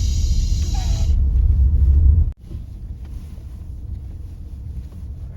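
Low rumble of a car driving, with a brief hiss in the first second. About two seconds in the sound cuts off abruptly and a quieter rumble carries on.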